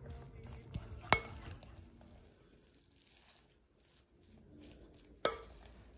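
Wooden spatula stirring rice in an enamelled cast-iron pot: soft scraping and mixing, with two sharp knocks of the spatula against the pot, the first about a second in with a brief ring, the second near the end.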